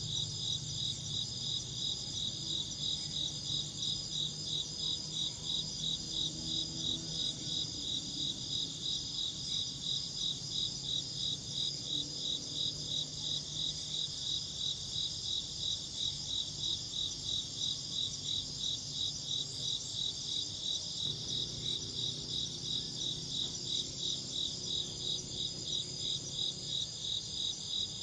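Insects chirping in a steady, even rhythm of about two to three high-pitched chirps a second, with a faint low rumble underneath.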